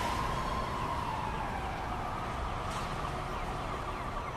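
A siren wailing, one long slow glide that peaks and then slowly falls in pitch, over a steady outdoor hiss.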